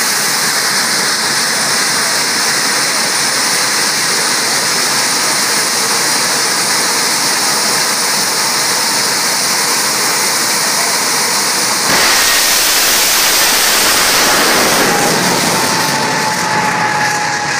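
Rocket car's engine running with a loud, steady, hissing roar on the starting line, then about 12 seconds in a sudden, louder and deeper blast as it launches down the drag strip, fading away over the next few seconds.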